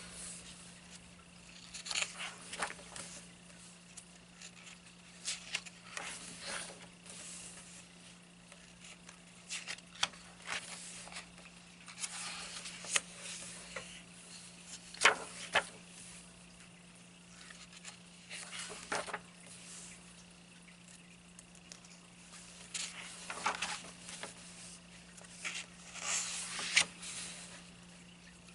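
Paper pages of a softcover coloring book being turned and smoothed flat by hand: short rustles and swishes every few seconds, over a faint steady hum.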